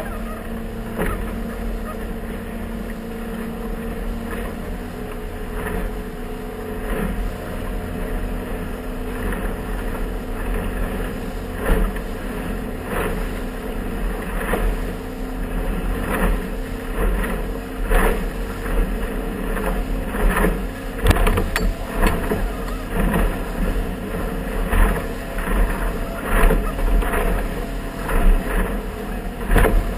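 Motorboat under way through choppy water: the engine runs steadily while the hull slaps against the waves. The slaps grow louder and more frequent in the second half, about one a second near the end.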